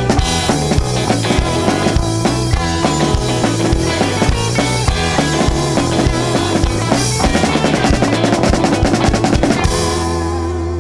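Live rock band of drum kit, electric guitars and bass playing the fast closing bars of a boogie. The drums thicken into a rapid flurry near the end, then about ten seconds in the band stops on a final chord that rings on.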